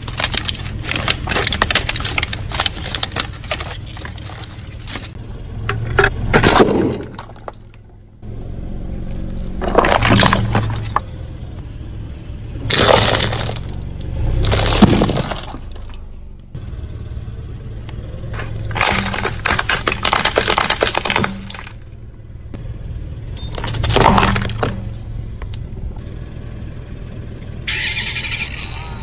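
Car tyre rolling over and crushing brittle objects: a series of loud cracking, crunching and breaking bursts every few seconds, over the car's engine running steadily.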